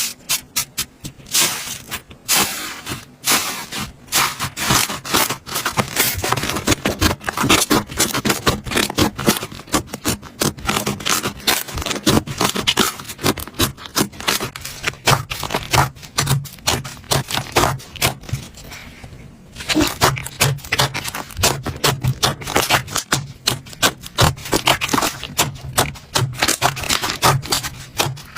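Slime being squeezed, stretched and pressed by hand, making a dense run of wet clicks, pops and crackles, with a brief lull a little past two-thirds of the way through.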